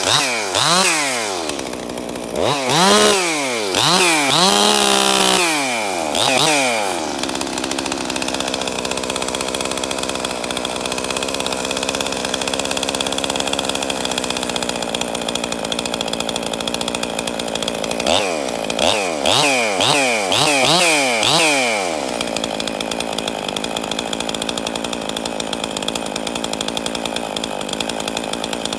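Ported Husqvarna 262XP two-stroke chainsaw with an opened-up muffler, revved in a series of quick throttle blips, settling to a steady idle, blipped four or five more times, then idling again. The owner says it runs well but has low compression from a worn piston ring.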